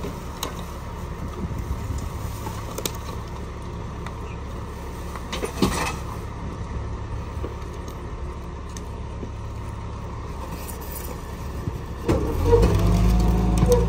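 Rear-loading garbage truck's diesel engine idling steadily, with a few sharp knocks and clatter as bulky waste is handled. About twelve seconds in the engine speeds up and runs louder as the hopper's hydraulic compactor is set going.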